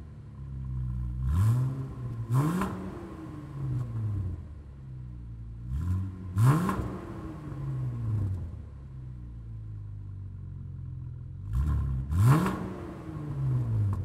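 2016+ Chevrolet Camaro's 3.6-litre LGX V6 through a Mishimoto Race axle-back exhaust, revved while parked. Three times, a few seconds apart, quick throttle blips send the pitch climbing sharply, then it falls back to a steady idle.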